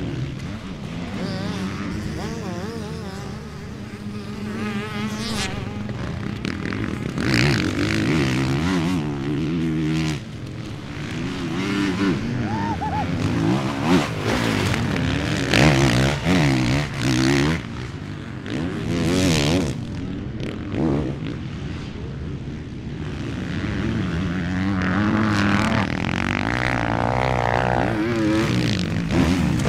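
Honda CRF450R motocross bike's engine revving hard, its pitch climbing and dropping again and again as the rider accelerates, shifts and backs off, growing louder and fading as the bike passes.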